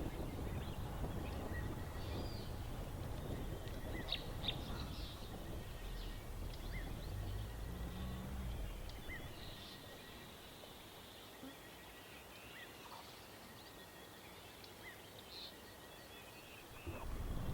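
Scattered short bird chirps over a low rumble, likely the game drive vehicle, which dies down about halfway through and leaves mostly the birds and a faint steady high hum.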